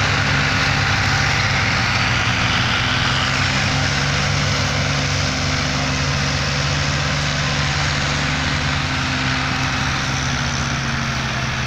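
Several diesel farm tractors running together under heavy load, hitched in a chain to haul a loaded sugarcane trolley; a steady, unbroken engine din.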